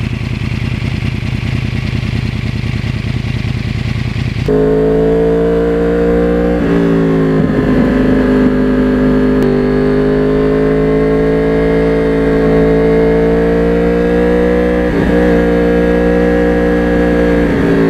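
2009 Yamaha R1 crossplane inline-four with a custom carbon exhaust, first running at a standstill, then about four seconds in heard under way at steady revs. The engine note dips briefly three times while riding.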